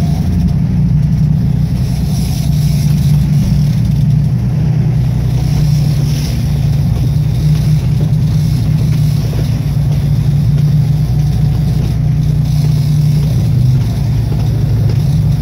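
Fishing boat's engines running steadily underway, a deep drone with the hiss of wind and water over it; the engine note drops slightly near the end.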